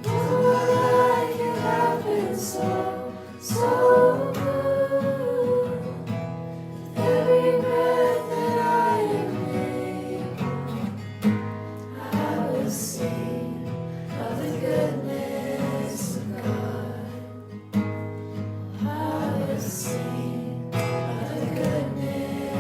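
Several voices singing a worship song together over strummed acoustic guitar, in long held phrases.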